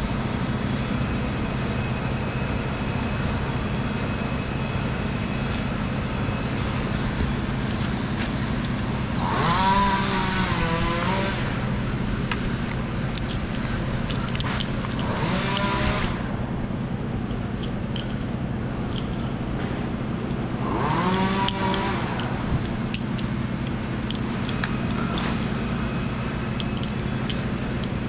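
Chainsaw idling with a steady drone, revved up and cutting three times, the first and last bursts about two seconds long and a shorter one between, its pitch rising and sagging under load.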